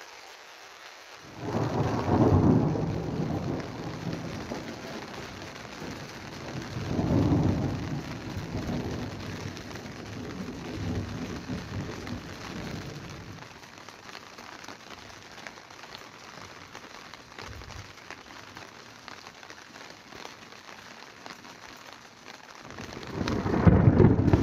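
Thunder rumbling over steady rain: three rolling peals in the first half, fading out, then a loud new peal building near the end. Rain hisses steadily throughout.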